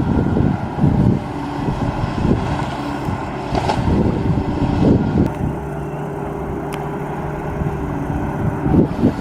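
Excavator's diesel engine running under load, with wind buffeting the microphone.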